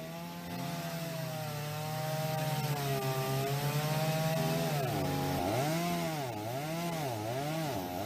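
Two-stroke chainsaw running while cutting up a fallen tree, its engine pitch wandering up and down. From about five seconds in it revs and bogs rhythmically, about twice a second, as it works through the wood.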